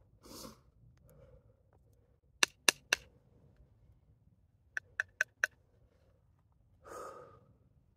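Sharp wooden taps as the seep willow hand-drill spindle and cottonwood root fireboard knock together, three quick taps a little past two seconds in and four more about five seconds in. Two short, soft breathy noises come shortly after the start and near the end.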